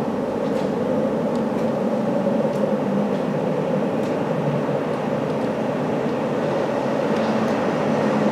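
London Underground battery-electric locomotives approaching through the tunnel: a steady low rumble that grows slowly louder.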